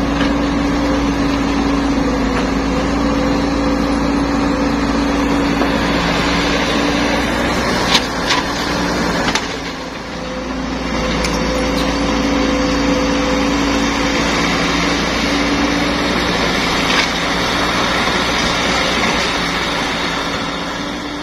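Caterpillar E120B hydraulic excavator's diesel engine running steadily with a constant drone as it digs and loads, with a few sharp knocks along the way, fading out near the end.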